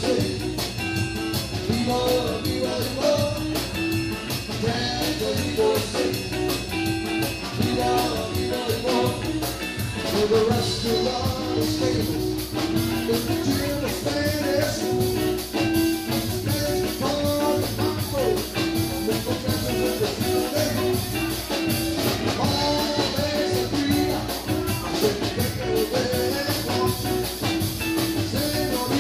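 A live band playing a dance number: a man singing lead over electric guitar, drum kit and keyboard.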